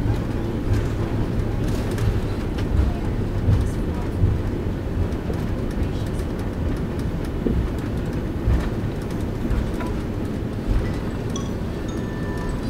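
Cabin rumble of an Airbus A330-300 rolling on the ground after landing, with irregular thumps as the wheels cross joints and bumps in the pavement.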